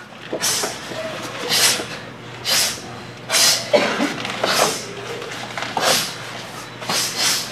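Taekwondo students performing a form together, each strike or block marked by a short, sharp hissing exhalation, about one a second.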